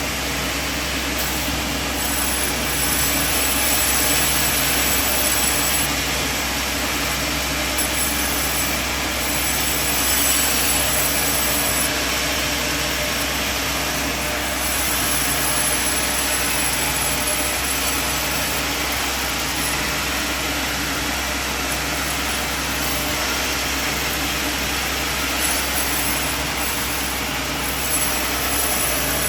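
Band sawmill running steadily, with a low hum that pulses about once a second.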